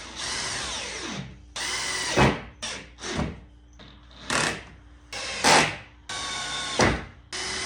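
Power drill-driver driving screws into wood to fasten door hinges, in about seven short runs with brief pauses between them.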